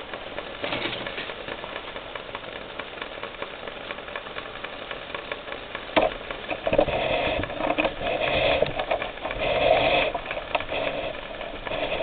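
Water in a stainless steel cup heating to a simmer over a homemade can alcohol stove, a steady faint hiss with fine crackling ticks of small bubbles. About halfway through there is a sharp knock, then louder, irregular rustling and bubbling noise.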